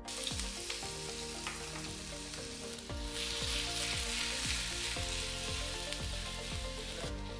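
Chopped ginger just tipped into hot coconut oil in a non-stick frying pan, sizzling steadily as it fries. The sizzle grows brighter and louder about three seconds in and drops back just before the end.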